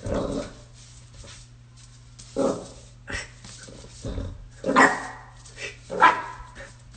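Jack Russell terrier puppy barking: several short, high yaps a second or so apart, the loudest two near the end.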